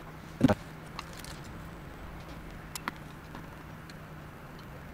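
Carbon-fibre drone frame parts knocking together as they are handled on a cutting mat: one sharp knock about half a second in, then a couple of light clicks, over a faint low hum.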